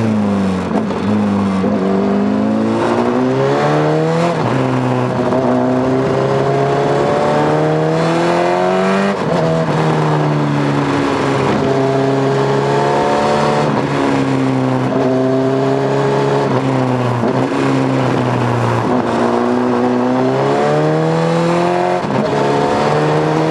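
Honda CBR1000 inline-four motorcycle engine under way, heard from on the bike. Its pitch climbs as it revs and drops back suddenly, several times, over a steady rush of wind.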